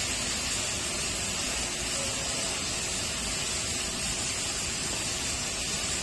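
Steady hiss of escaping steam from the steam locomotive C56 160 standing under steam.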